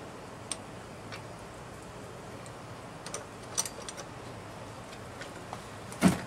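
Scattered small metal clicks and taps as the metal handle braces of a push reel mower are held and worked by hand to line up their bolt holes, with one louder knock just before the end.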